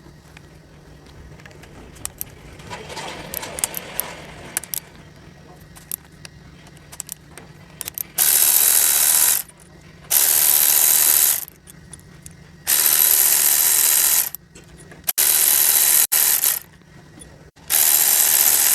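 A power ratchet runs in about five short bursts of a second or two each, starting about eight seconds in, as it undoes the screws holding the valve body of a CVT transmission. Before the bursts come light clicks of tool and screw handling.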